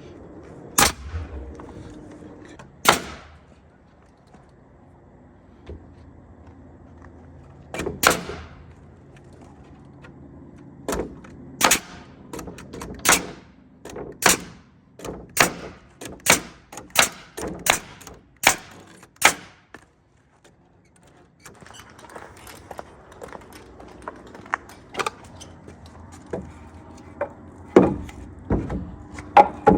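A run of sharp knocks or impacts: a few scattered ones, then about a dozen in quick, irregular succession around the middle, and a couple more near the end.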